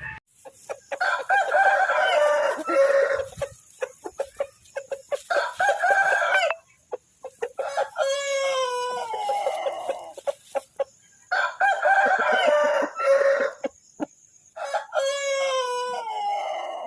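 Roosters crowing over and over, about five long crows in a row, with short clucks and clicks between them.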